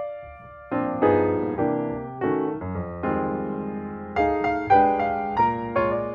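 Background piano music, chords and single notes struck and left to fade, with a brief lull just after the start.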